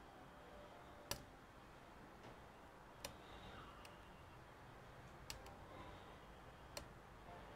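Near silence broken by four faint, sharp clicks roughly every two seconds, the third a quick double: a small hand tool working at a laptop fan's cable connector to straighten a bent pin.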